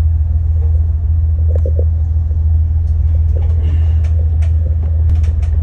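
Steady low engine rumble, with a few light clicks and knocks on top.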